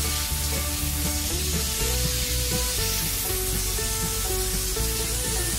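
Background music, a melody of held notes changing in steps over a low bass, with a steady hiss laid under it.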